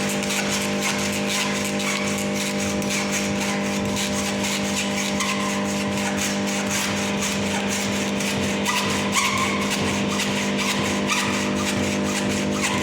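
Steady droning hum of a running machine, with a few faint knocks about nine and eleven seconds in.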